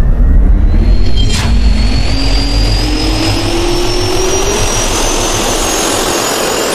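Jet engine spooling up, used as an intro sound effect: a loud steady rush with a high whine and a lower hum both rising slowly in pitch, and a brief crack about a second and a half in.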